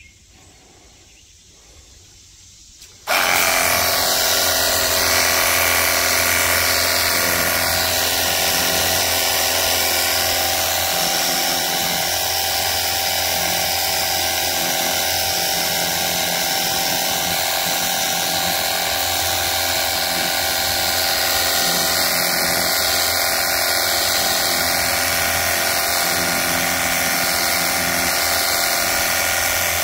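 Pircaath 500 PSI battery-powered cordless pressure washer switching on about three seconds in, its motor and pump then running steadily with a constant hum and a high hiss.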